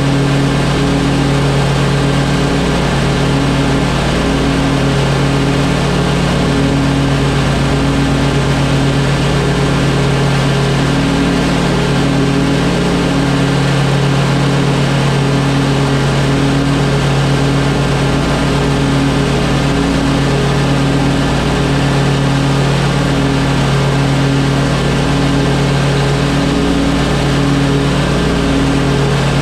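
Stand-on zero-turn lawn mower engine running steadily while cutting grass, heard close up from the operator's platform, with a low hum that holds even.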